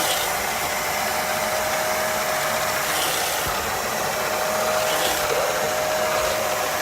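Upholstery wet-extraction machine's vacuum motor running steadily, a constant airy whine with a steady mid-pitched tone.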